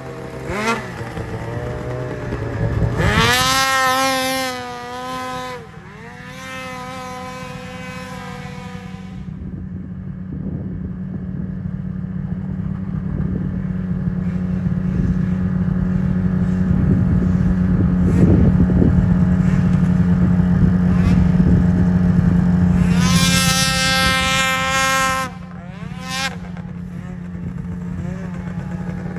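Race snowmobile's two-stroke engine being ridden hard: sharp revs about three seconds in and again a few seconds later, then a long steady drone that grows louder and falls away, with more hard revving near the end.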